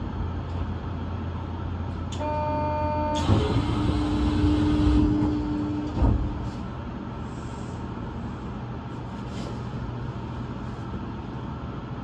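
Osaka Metro New Tram automated train standing still: a steady low hum from its equipment, a short electronic tone about two seconds in, then a hiss and a held hum, and a single knock about six seconds in, after which it settles back to a quieter hum.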